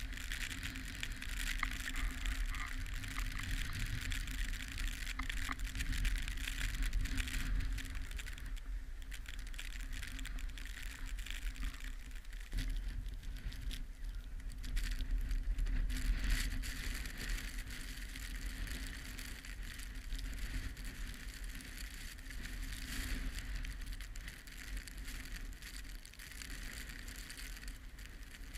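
Skis sliding over snow, with wind rumbling on the camera's microphone: a steady rushing hiss over a low buffeting rumble.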